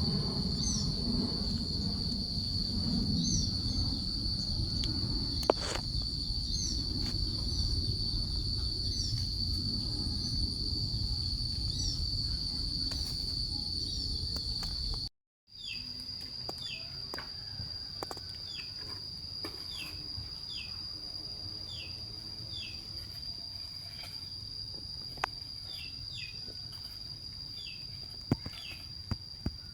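An insect's steady, unbroken high trill, with many short, falling chirps from birds over it and a low outdoor rumble beneath, stronger in the first half. Everything cuts out for a moment about halfway through, then the trill and chirps carry on.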